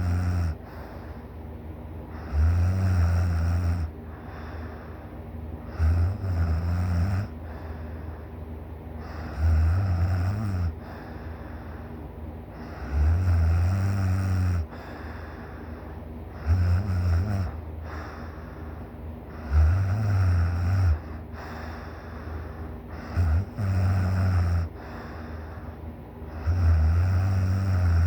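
A person asleep, snoring really loud: deep, low snores about every three and a half seconds, each lasting a second or so, with quieter breaths between them. About two-thirds of the way through, one snore comes as two short ones close together.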